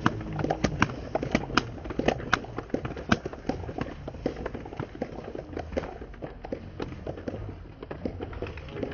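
Irregular sharp clicks or claps, several a second, over a low outdoor rumble.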